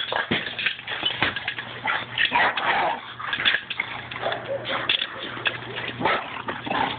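Two boxer dogs play-wrestling over a ball, making a run of short, irregular dog noises.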